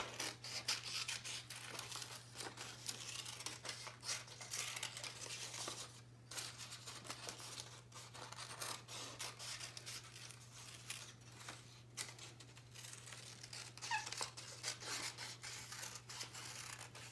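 Scissors snipping through construction paper as a traced handprint shape is cut out: a long, irregular run of short snips, with the paper rustling as it is turned.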